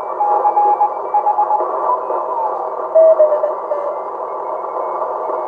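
Shortwave receiver audio from a homebuilt 1Watter QRP transceiver being tuned across the 40-metre band, played through a speaker via an audio filter: a steady band hiss with Morse code signals beeping at several pitches. About two seconds in, one tone slides down in pitch as the dial moves across it.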